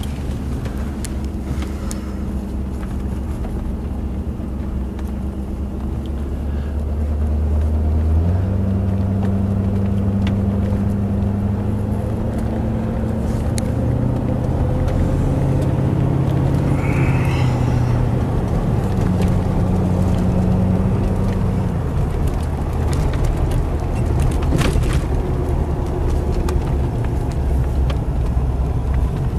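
Cabin sound of a 1984 Cadillac Eldorado Biarritz convertible under way: engine hum and road noise. About eight seconds in the hum rises in pitch and gets louder as the car picks up speed, then settles lower again later on.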